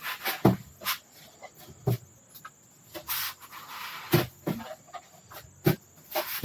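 Irregular clicks and light knocks of tools and parts being handled during work on an ATV's skid plate, with a short hiss about three seconds in.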